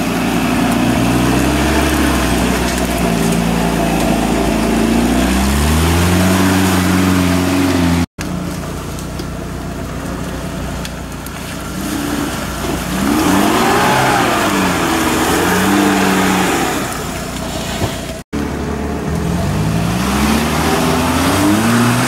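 Off-road 4x4 engines revving up and down repeatedly as the vehicles push through deep forest mud, in three separate passes cut together.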